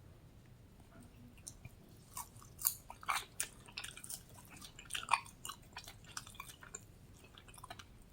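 Close-up chewing of crispy fried chicken wings: scattered wet crunches and crackles of the fried skin, loudest about a third of the way in and again past the middle.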